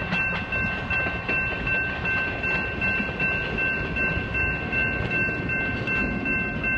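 Railroad crossing bell ringing steadily, about two strikes a second, over the rumble and wheel clatter of a passenger train with a Great Smoky Mountains Railroad diesel locomotive passing over the crossing. The locomotive clears the crossing near the end while the bell keeps ringing.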